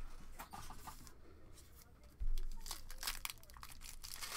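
Foil wrapper of a trading card pack being torn open and crinkled in the hands, with a low thump about two seconds in.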